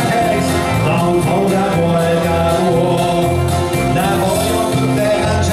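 A country song performed live: a man singing over electric bass guitar and full accompaniment with a steady beat.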